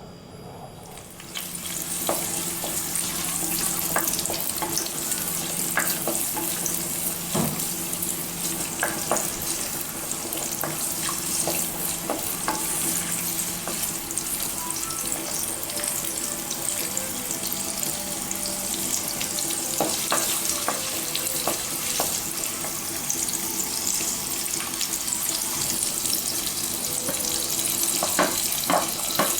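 Onions and the other gravy ingredients sizzling as they fry in hot oil in a pan. The sizzle starts about a second in and stays steady, with the spatula clicking against the pan now and then during stirring.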